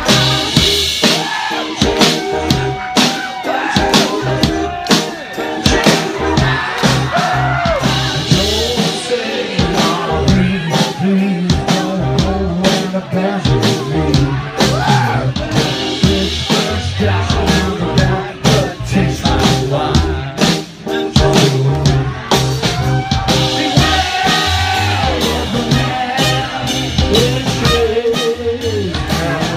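Live band music, loud, with a steady drum beat and a singer's voice over it.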